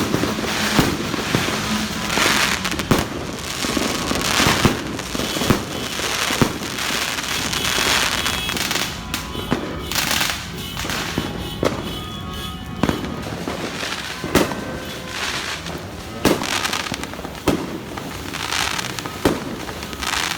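Fireworks and firecrackers going off all around at New Year: a continuous haze of crackling and popping, broken by many separate sharp bangs at irregular intervals, with music playing under it.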